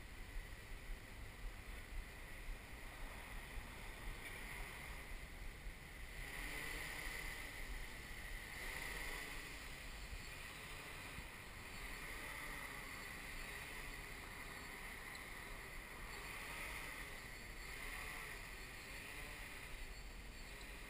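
XAircraft X650V X8 coaxial octocopter's motors and propellers whirring in hover, a high whine that swells and eases as the throttle goes up and down and grows louder from about six seconds in. Wind buffets the microphone.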